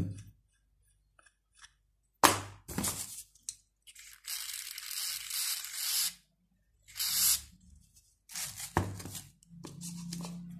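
Aerosol spray can hissing in a burst of about two seconds, about four seconds in, and again briefly about seven seconds in, spraying onto sawdust packed into a drilled hole in wood. Before it come a sharp click, the loudest sound, and some scraping from a spatula packing the sawdust.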